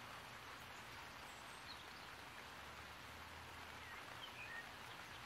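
Faint steady outdoor background hiss, with a few faint bird chirps about four seconds in.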